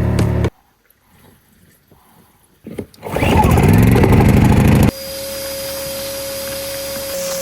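A RIDGID shop vacuum motor switching on about three seconds in and winding up in pitch, loud. From about five seconds in it settles into a steady high whine with hiss as it runs. In the first half second a steady engine-like hum is heard before it cuts off to near quiet.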